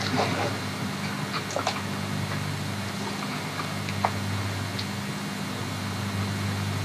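Steady low hum and hiss of an old archival recording, with a few faint sharp clicks.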